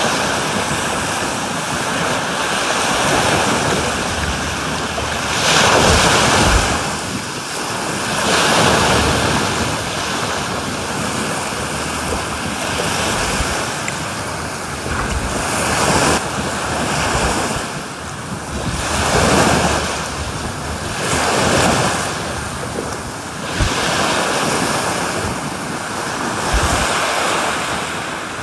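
Sea waves washing onto a beach, the surf swelling and falling back every few seconds, with wind buffeting the microphone.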